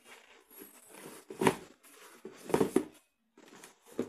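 Handling noise: a pair of sneakers rustling and scraping as they are turned over in the hands close to the microphone, with two louder scrapes about a second and a half and two and a half seconds in.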